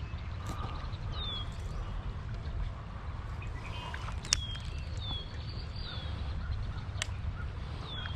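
Outdoor stream-side ambience: a bird repeating short, downward-slurred chirps every second or so over a steady low rumble, with a couple of sharp clicks about four and seven seconds in.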